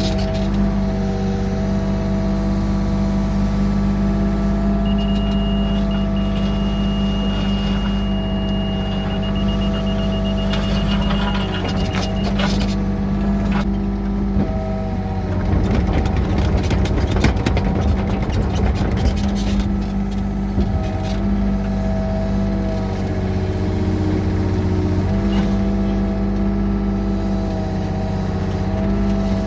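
Yanmar B37 mini excavator's diesel engine running steadily, heard from the cab. A Trimble CR600 grade receiver sounds a high, steady tone for several seconds, which breaks into rapid beeps and stops about a third of the way in; the steady tone is the receiver's on-grade signal. A stretch of gravel scraping and rattling under the bucket follows past the middle.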